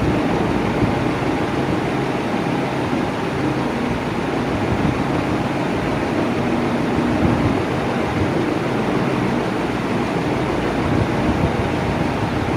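Electric fan running steadily: an even whoosh of moving air with a faint steady hum.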